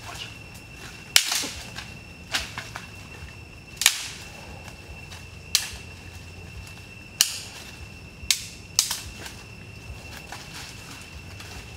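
Dry sticks and branches snapping in sharp single cracks, seven of them at irregular intervals of one to two seconds.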